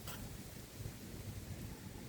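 Low, steady rumble of strong wind with a faint hiss over it, and one light click right at the start.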